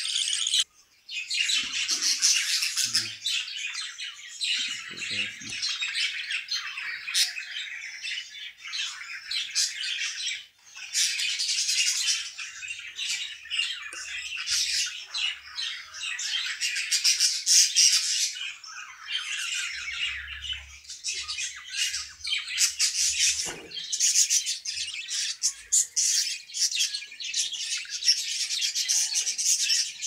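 Many budgerigars chattering and squawking at once, a dense unbroken raspy chorus, with two brief breaks about a second in and about ten seconds in.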